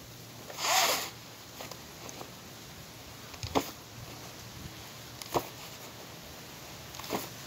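A loaded rucksack being lifted and handled during deadlifts and hang power cleans: a short, loud rustling rush about a second in, then three brief clicks about two seconds apart.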